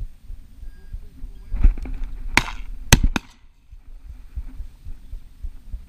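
Shotgun shots at flushed quail: a quick string of sharp reports between about a second and a half and three seconds in.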